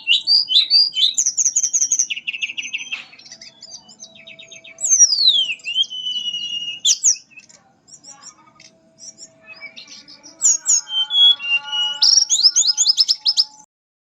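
Mangrove blue flycatcher singing: quick, varied high whistles and trills. About five seconds in comes a long falling whistle that levels off, then a quieter stretch. Another burst of fast trills follows and cuts off abruptly near the end.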